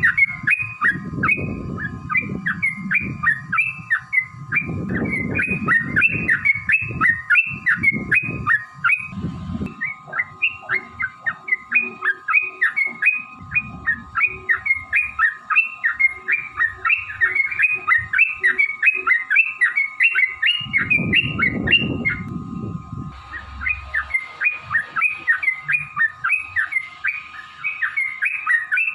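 Yellow-vented bulbul (trucukan) singing a long, fast run of repeated chirps, about three to four a second, with a short break about 22 seconds in. Low rumbles sound under the song for the first ten seconds and again just before the break.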